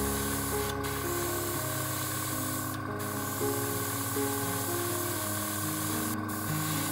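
Airbrush spraying paint with a steady hiss that cuts out briefly three times as the trigger is let off.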